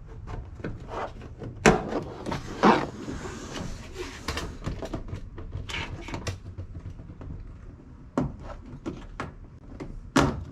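Interior wall panels and their plastic push clips being pried off and handled inside a bare metal van: scattered clicks and knocks, the loudest about two and three seconds in and again near the end.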